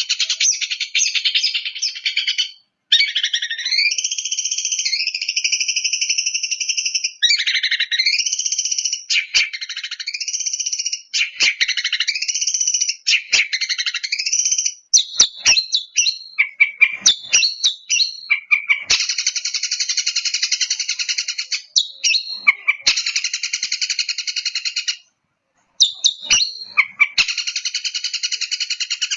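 Long-tailed shrike (cendet) singing a long, almost continuous song of fast buzzy trills and sweeping notes, with short sharp clicks between phrases. It breaks off briefly about three seconds in and again near the end.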